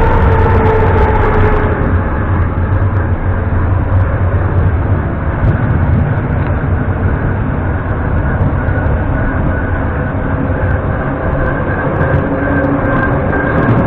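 Retro metro train running, heard from inside the carriage: a loud, steady rumble of wheels on rail and running gear, with a faint motor whine above it that falls slightly at the start, and a higher whine that grows stronger in the second half.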